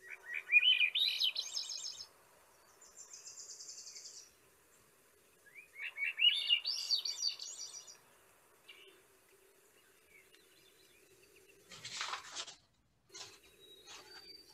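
Swainson's thrush singing: two flute-like song phrases, each spiralling upward in pitch, one at the start and one about six seconds in, with a buzzy high note between them. A short rushing noise comes about twelve seconds in.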